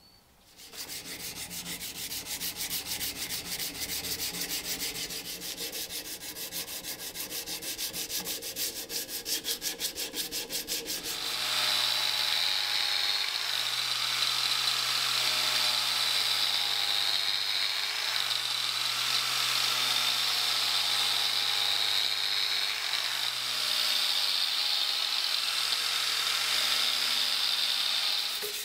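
Abrasive sanding of a steel axe head. It starts as a fast, even rubbing. About a third of the way in it becomes a steadier, louder sanding hiss over a low steady hum, with a couple of brief dips.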